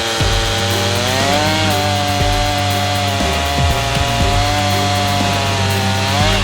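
Stihl MS 391 two-stroke chainsaw on a chainsaw mill, running at high revs as it rips lengthwise through a white oak log. The engine note rises about a second in, holds steady under load, and climbs again near the end.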